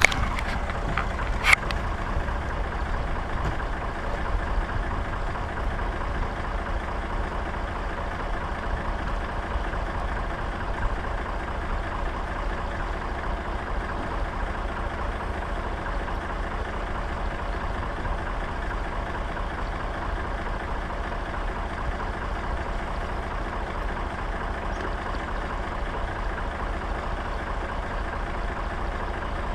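Massey Ferguson 135 tractor engine running steadily, with one sharp click about a second and a half in.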